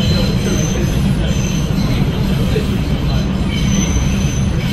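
New York City subway train running along the rails with a steady heavy rumble, with short high-pitched wheel squeals now and then.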